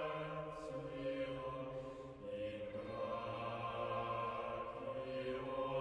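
Slow background music made of long held notes that change pitch every second or two.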